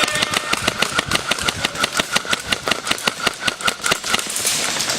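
Airsoft electric gun firing full-auto: a fast, even string of shots with the gearbox motor whining under them, stopping about four seconds in.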